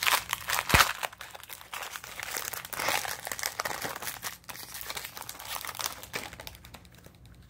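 Shiny foil wrapper of a baseball card pack crinkling as it is torn open and the stack of cards slid out, with a sharp crackle just under a second in; the rustling thins out near the end.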